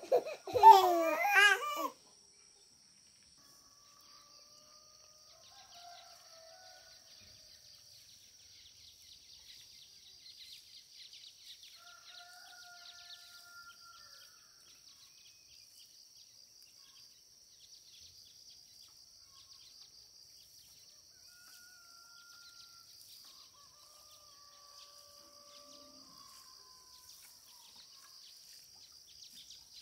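A baby gives one short, loud, wavering cry lasting about two seconds. After it comes a faint steady high-pitched drone of insects with a few faint bird calls.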